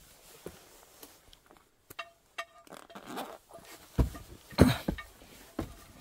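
Scattered light knocks and clicks, with two louder thumps a little past halfway.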